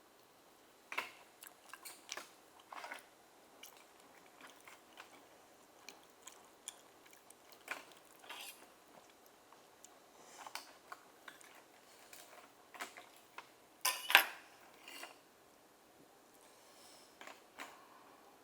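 Close-miked chewing and biting of steamed oysters: irregular short wet mouth sounds and smacks, with a louder pair of sounds about fourteen seconds in.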